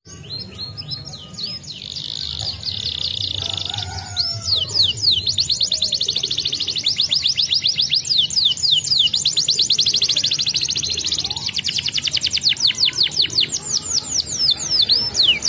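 Domestic canary singing: fast rolls of quick, high, downward-sweeping notes, many to the second, with a short steady trill about two to three seconds in and brief breaks between the runs.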